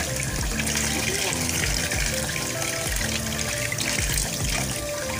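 Tap water running in a steady stream over a mud crab held in the hands and splashing into a basin of water. Background music plays underneath.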